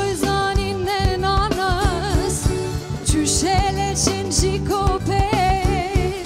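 A woman sings live into a microphone, holding and bending notes with a wide vibrato, over a band with a steady drum beat and bass.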